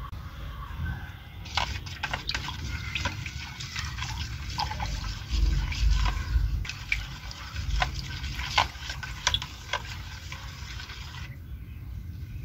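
Water in a plastic bowl being stirred and splashed with a plastic syringe, with many small irregular clicks and drips as medicine tablets are mixed in.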